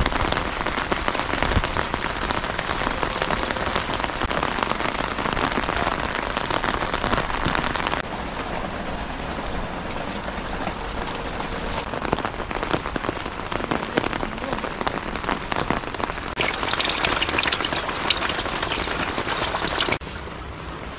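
Heavy rain falling steadily and pattering on the surfaces around, with several abrupt changes in loudness and brightness; the crispest, brightest patter comes near the end.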